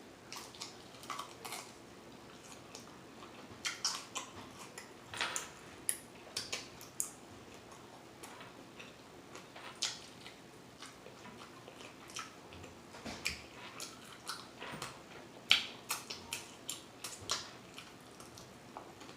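Close-miked mouth sounds of eating: irregular wet chewing and lip smacks, with one sharper smack about fifteen seconds in.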